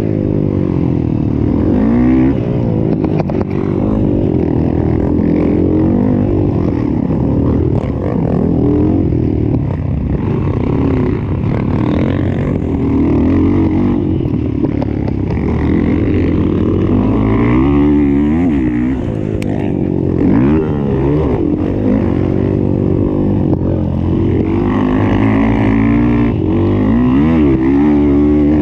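Motocross bike engine at full race pace, revving hard and dropping back again and again through gear changes and corners.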